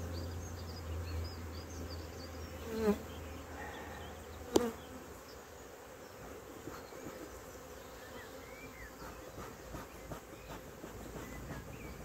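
Honeybees buzzing around an open hive, with two brief louder sounds about three and four and a half seconds in, the second a sharp knock.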